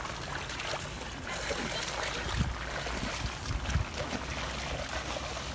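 Splashing and sloshing of feet wading through shallow floodwater as a cast net is dragged, over a steady hiss of heavy rain, with a couple of low thumps a little past halfway.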